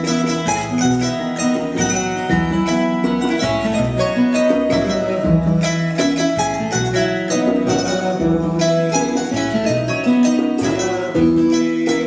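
Music of plucked string instruments, guitar-like, playing a continuous run of notes.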